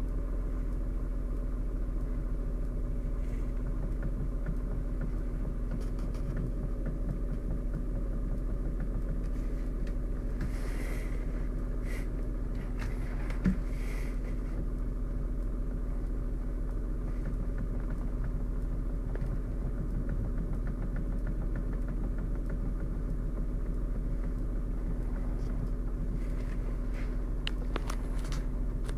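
Car running with a steady low rumble and hum, with a few faint, irregular knocks now and then: a knock in the steering.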